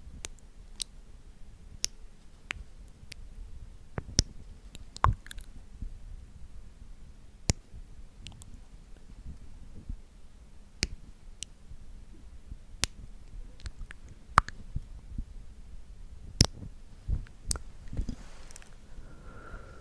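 Close-miked ASMR mouth sounds: scattered wet clicks, irregular and about one a second, some louder than others.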